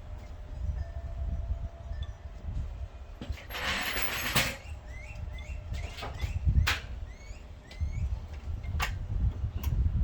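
Sharp metallic clinks of tools being handled, with a short burst of rattling noise about four seconds in, over a steady low rumble; short bird chirps come in around the middle.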